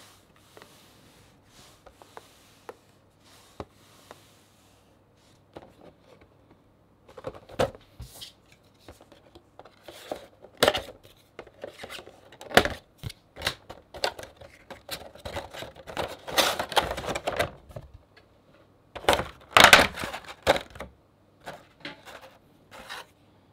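A cardboard Funko Pop box and its clear plastic tray being handled and opened. Faint handling at first, then from about seven seconds in, sharp clicks and snaps with bursts of crinkly rustling as the packaging is pulled apart.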